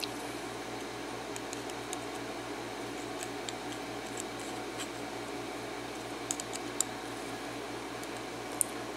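Small metal ticks and clicks of hand tools working at a padlock's retaining clip, mostly faint, with a few sharper clicks in the second half, over a steady low hum.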